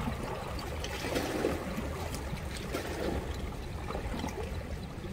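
River water flowing over rocks, a steady rush with small irregular splashes.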